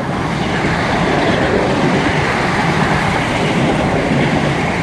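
A Class 320 electric multiple unit passing through the station without stopping, giving a steady rush of wheel-on-rail noise.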